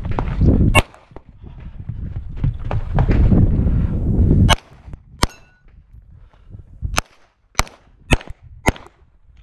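Shots from a 9mm major Open-division race pistol (SPS Vista Star 2011): about seven sharp cracks, spaced out early on and then coming roughly every half second near the end. One is followed by a brief ringing, a steel target being hit. In the first half, heavy rumbling from the shooter moving, with wind on the microphone.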